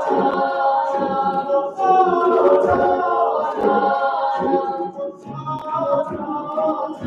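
Mixed choir singing a cappella in several parts, with hand claps keeping time about once a second.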